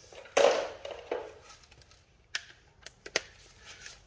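Hand tools and fasteners being handled during work on the front suspension: a short scraping clatter about half a second in, a smaller one just after, then a few light clicks.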